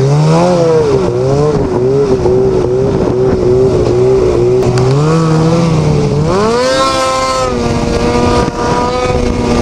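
Snowmobile engine running loud under the rider, its pitch rising and falling with the throttle. About six seconds in it accelerates hard and holds a high, steady pitch at speed.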